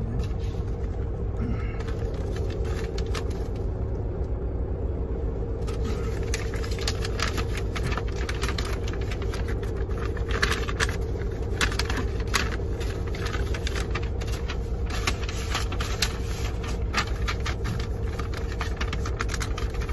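Semi-truck engine idling steadily, heard inside the cab, with paper rustling and handling clicks from about six seconds in.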